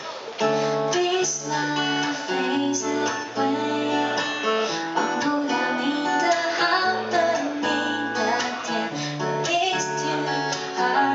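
A woman singing into a microphone while strumming an acoustic guitar, a live solo performance of a slow song.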